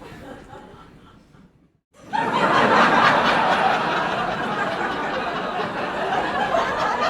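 Comedy club audience laughing. One laughter track fades to a moment of silence, then about two seconds in a fresh burst of crowd laughter starts loud and carries on as sustained laughing and chatter.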